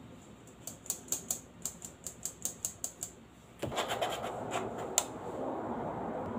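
Flour being sifted through a metal mesh sieve: quick light ticks as the sieve is tapped, about five a second, then from about three and a half seconds a steady rasping as a utensil rubs the flour through the mesh.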